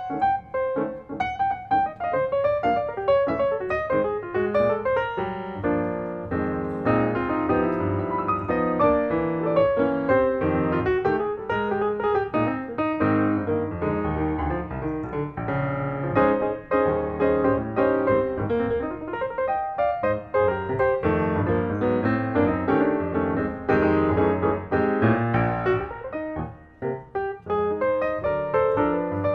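Background piano music, a steady stream of notes over chords.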